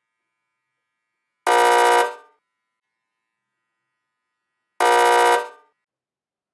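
An electronic wrong-answer buzzer sound effect sounding twice, about three seconds apart: each a harsh, even blast of about half a second that cuts in suddenly and fades quickly. It marks the posture being shown as bad.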